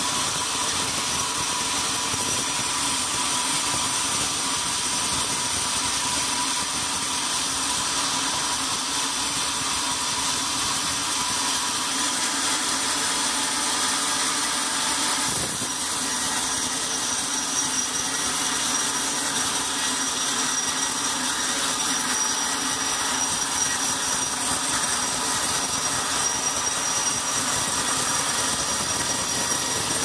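Band sawmill running, its blade cutting lengthwise through a large log with a steady whining machine noise.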